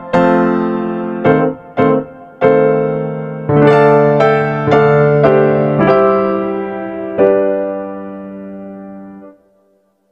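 Background music: a gentle piano melody of single notes, each ringing and fading, which dies away and stops about nine seconds in.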